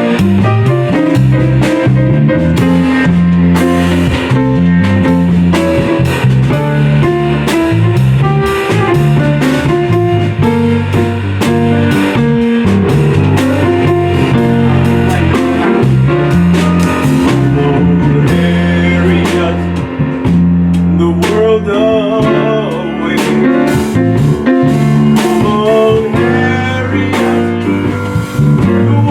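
Small band playing an instrumental passage: guitar, bass and drum kit, with steady bass notes under regular drum hits.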